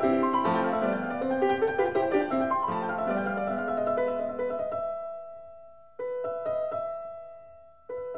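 Background piano music: a flurry of quick notes, then held chords that fade away, with new chords struck twice about two seconds apart near the end.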